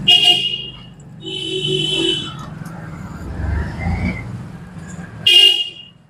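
A vehicle horn tooting three times: a short toot at the start, a longer one about a second in, and another short one near the end, over a low street rumble.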